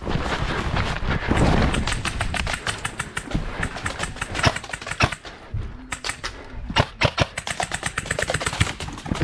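A player running with airsoft gear: footsteps and a steady clatter of knocks and rattles from equipment and gun, with quick runs of clicks in the last few seconds.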